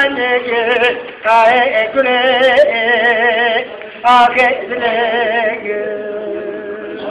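An elderly man singing a Turkish folk song unaccompanied, in long held notes with a heavy wavering vibrato, pausing briefly for breath twice. The voice thins and fades over the last second or so.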